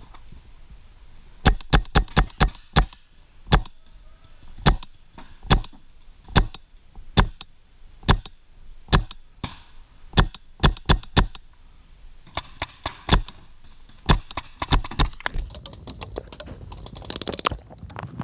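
Magazine-fed paintball marker firing: sharp pops, first a rapid string of about five shots, then single shots about a second apart and further short strings. Near the end, rattling and scraping of a magazine being handled.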